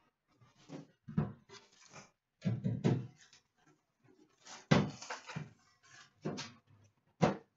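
Metal trading-card tin being handled and opened on a glass counter: a series of sharp knocks and clatters, loudest about halfway through and again near the end.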